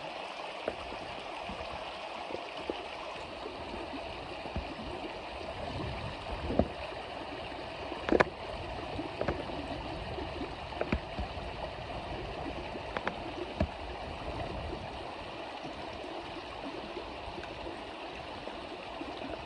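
Creek water running steadily over rocks, with a few short sharp knocks, the loudest about eight seconds in.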